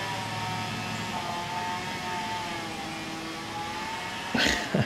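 A distant engine drones steadily, its pitch wavering slowly up and down. Near the end comes a brief, loud rustling thump that falls in pitch.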